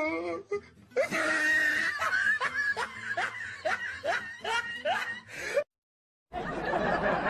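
Laughter: a quick run of short, rising giggling notes, about two or three a second. It breaks off into a moment of dead silence about five and a half seconds in, and a voice-like sound starts again just after.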